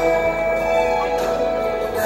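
Slow music of long held chords with no beat, from a church band with keyboard.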